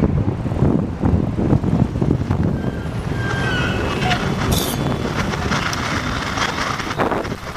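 Steady rushing noise like wind on a microphone, with a few faint short whistles about three seconds in.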